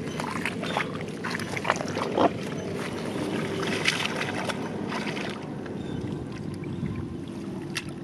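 Shallow muddy water splashing and sloshing in quick, irregular bursts as hands grope in it for catfish, the splashes thinning out after about five seconds.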